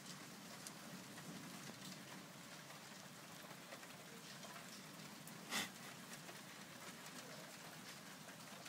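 Faint steady rain with scattered raindrop ticks. A single short, sharp tap a little past halfway is the loudest sound.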